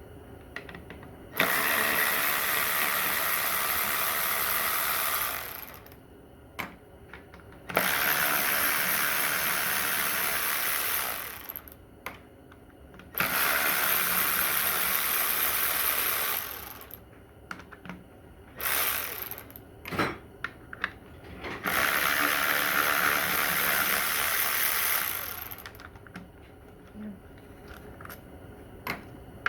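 A power tool, such as an air ratchet or impact wrench, running four times for about four seconds each, spinning out the 1/2-inch bolts on a Corvair Powerglide transmission case. Metal clicks and clinks come between the runs as sockets and bolts are handled.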